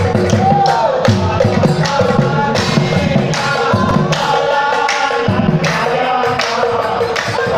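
Nagara Naam: a group of men singing an Assamese devotional chant in chorus, over the beat of nagara drums and the clash of hand cymbals.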